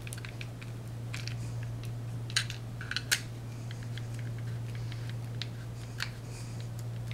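Small screwdriver tightening the screws that join the two plastic halves of an injector faceplate: scattered light clicks and scrapes of the tool on the screws and plastic, over a steady low hum.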